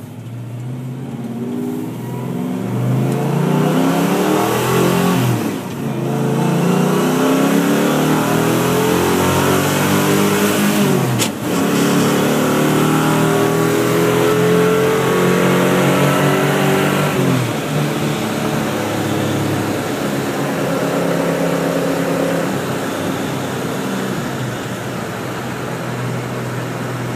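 Small-block Ford V8 roller motor of a 1963½ Ford Galaxie 500, heard from inside the cabin, accelerating hard through the gears of its five-speed manual. The engine note climbs, drops sharply at upshifts about six and eleven seconds in and climbs again, then falls back after about seventeen seconds into a steadier run.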